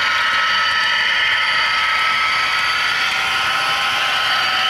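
HO scale model train running along the layout: a steady whirring hiss with a thin, even high hum.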